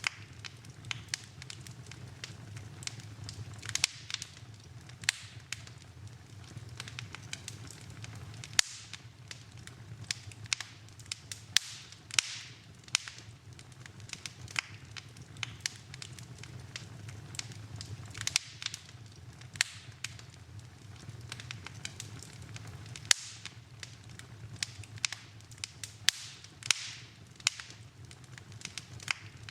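Wood fire burning in a fireplace: frequent sharp, irregular crackles and pops over a steady low rush of flame.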